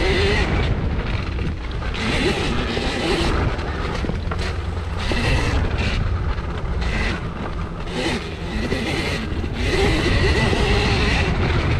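Husqvarna EE 5 electric mini dirt bike ridden along a dirt trail. The electric motor whines, rising and falling in pitch with the throttle, over a steady rumble of wind on the microphone and tyres on dirt.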